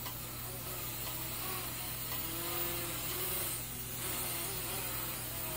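Syma X11 mini quadcopter in flight: the steady whir of its small motors driving the geared propellers, its pitch wavering slowly up and down.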